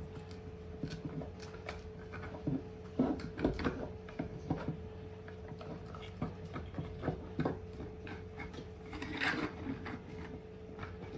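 Paracord being threaded and pulled through the holes of 3D-printed plastic parts: scattered light clicks, taps and rustles of cord and plastic handling, over a steady faint hum.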